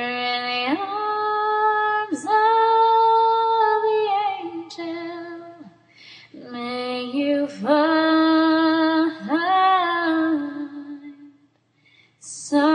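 A woman singing a slow ballad in long, held notes with vibrato, in two drawn-out phrases with a short break between them and another phrase starting near the end.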